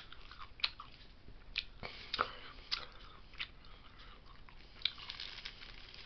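A person chewing a bite of Tabasco Slim Jim meat stick close to the microphone, with irregular wet clicks and crackles from the mouth.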